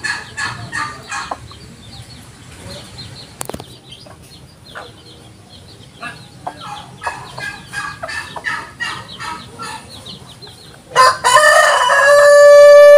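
Chickens clucking in short runs of quick calls. About eleven seconds in, a rooster crows: one loud, long, held call that is the loudest sound here.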